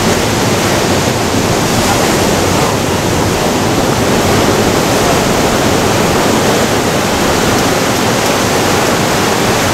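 Ocean surf breaking and washing over rocks and sand: a loud, steady rush with no pauses.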